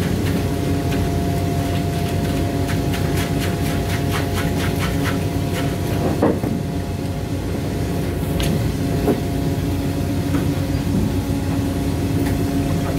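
Steady drone of a fishing boat's machinery. About a third of the way in comes a run of quick clicks, then a few single knocks, as a big knife hacks into a tuna on the wet deck.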